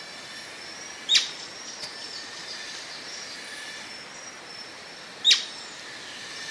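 Atlantic royal flycatcher calling: two loud, sharp notes that drop steeply in pitch, about four seconds apart, with a fainter one between, over steady background noise.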